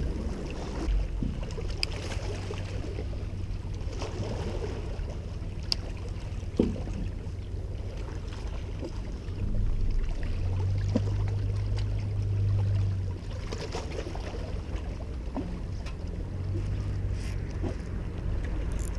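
A motorboat engine's low, steady drone across the water, swelling for a few seconds about halfway through and again briefly near the end, with a few light clicks.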